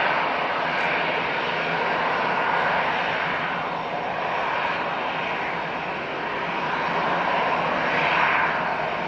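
ATR 72-600 turboprop airliner's engines and propellers running steadily as it comes in to land, the sound swelling and easing slightly.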